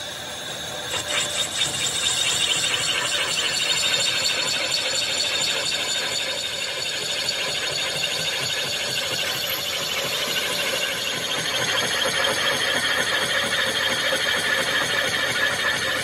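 Lathe cutting tool squealing as it turns the outside of a spinning diesel engine cylinder sleeve: a steady, high-pitched ringing squeal of the cut that builds about a second in.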